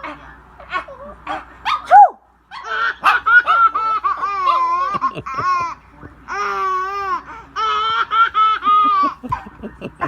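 A woman sneezes, sudden and loud, about two seconds in. Then a six-month-old baby girl laughs in several long bouts of high-pitched, rhythmic laughter.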